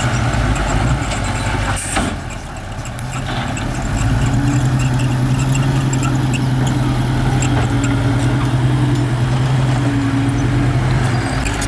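Heavy diesel engine of a bulldozer running, with one sharp knock about two seconds in. The engine sound dips briefly after the knock, then comes back louder and steady from about four seconds on.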